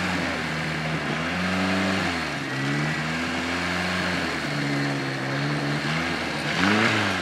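Off-road buggy's engine revving in repeated pulses, each held for a second or so and then eased off, with a quick rev up and down near the end, as the bogged-down buggy tries to pull free of deep mud.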